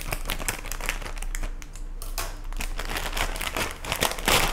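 Plastic instant-noodle packet crinkling as it is handled and opened, in a run of short crackles with a louder burst near the end.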